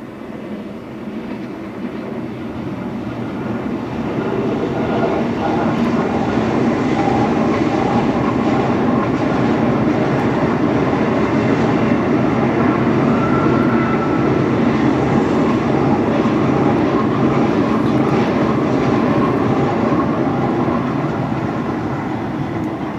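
Double-deck electric passenger train rolling across a stone arched viaduct: the wheel and rail noise swells over the first few seconds, holds steady as the train crosses, and fades near the end as it moves away.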